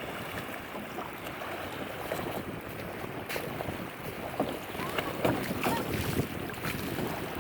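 Canoe paddles dipping and splashing in the water, with scattered short splashes and knocks over steady wind noise on the microphone.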